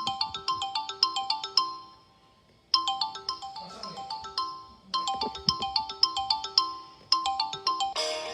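Mobile phone ringtone: a short tune of bright, bell-like notes looping about every two seconds, with a brief pause after the first loop. Near the end it switches to a different tune.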